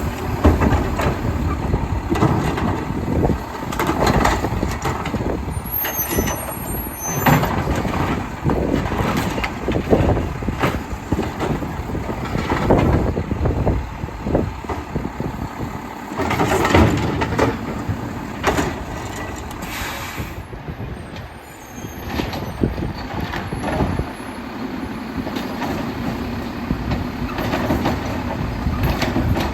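Mack LEU side-loader garbage truck with a Labrie Automizer body working its route: the diesel engine runs throughout, with many sharp clanks and knocks scattered through it.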